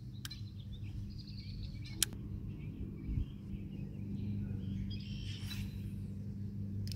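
Birds chirping faintly over a steady low hum, with one sharp click about two seconds in.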